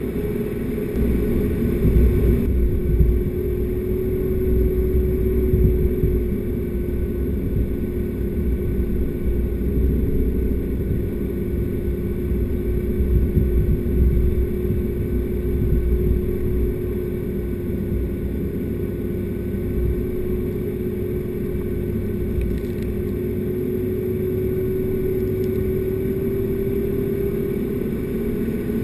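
A four-wheel-drive vehicle driving on beach sand: a steady engine drone with a held tone that drifts only slightly in pitch, over an uneven low rumble.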